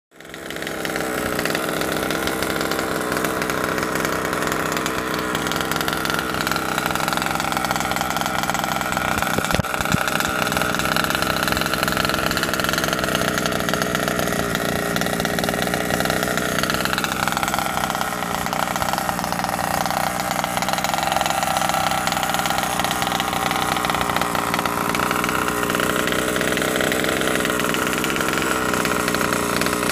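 HPI Baja 5B's small two-stroke petrol engine idling steadily, its pitch wandering slowly up and down.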